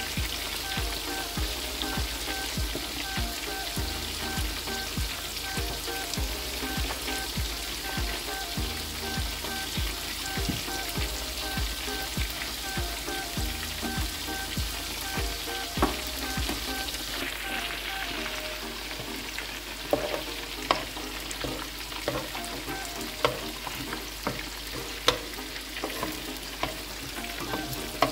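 Sliced bell peppers and onion sizzling in oil in a frying pan while a wooden spatula turns them. In the second half, several sharp knocks as the spatula strikes the pan.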